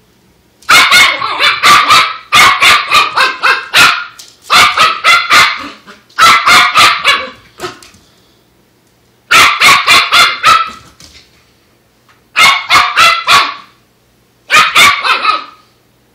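Wire fox terrier puppy barking at a dust mop in seven quick volleys, each a rapid run of sharp, loud barks with short pauses between.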